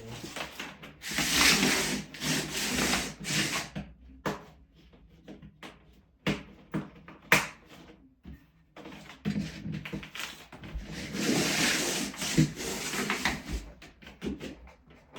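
Rubbing and scraping handling noise with a run of sharp clicks in the middle, as heating cable is worked into the plastic studs of a Ditra-Heat uncoupling membrane.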